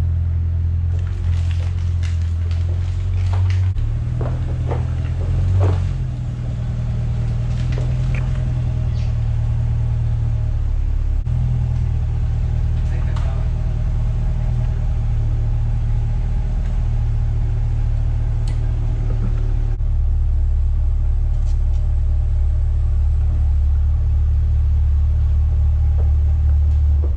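2022 Chevrolet C8 Corvette's 6.2-litre LT2 V8 running at low speed and idling as the car creeps into place, a steady low rumble.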